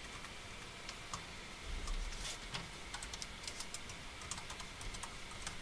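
Typing on a computer keyboard: faint, irregular key clicks as a short name is typed in.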